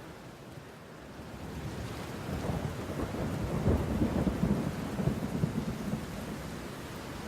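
Deep, crackling rumble that swells from about a second in, is loudest around the middle, then eases off, in the manner of rolling thunder or a distant boom.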